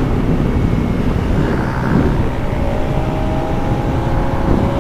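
Bajaj Pulsar RS200 single-cylinder engine and exhaust running steadily while the bike is ridden, a dense low rumble with no marked revving.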